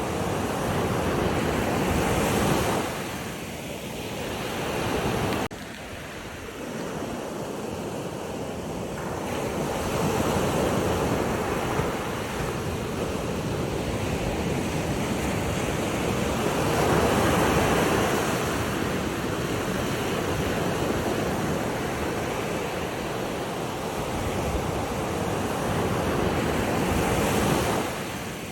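Surf washing in, a steady rush of water that swells and eases every few seconds, dropping suddenly about five and a half seconds in.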